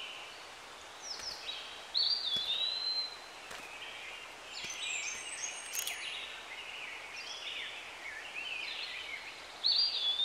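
Birds calling: a whistled call that sweeps up and then holds steady, about two seconds in and again near the end, with scattered chirps in between.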